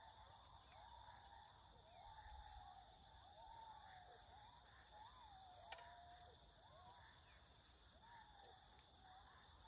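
Near silence: faint outdoor ambience with a steady high-pitched tone and faint wavering calls, plus a single sharp click just past the middle.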